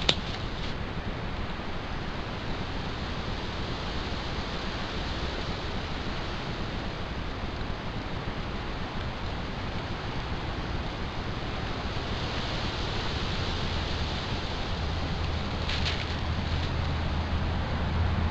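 Steady outdoor noise hiss, like wind across the microphone, with a low hum coming in during the last few seconds.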